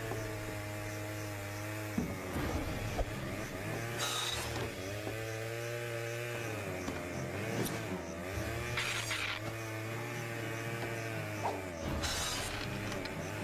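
Cartoon chainsaw running and revving up and down. Short crashes of objects being sawn apart come about four, nine and twelve seconds in.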